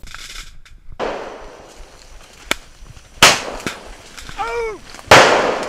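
Firecrackers going off to scare wild elephants away: a few sharp cracks, then two loud bangs about two seconds apart, each echoing as it fades.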